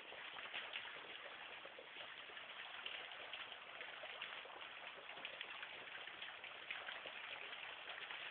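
Water pattering and trickling: a steady soft hiss dotted with many small drips and splashes.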